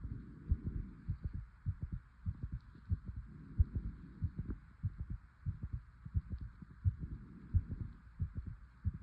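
Fast heartbeat: quick, regular low thumps in lub-dub pairs over a steady faint hiss.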